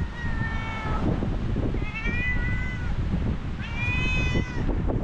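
A cat meowing three times, each a drawn-out call of about a second: the first falls in pitch, the next two rise and fall. Strong wind rumbles on the microphone underneath.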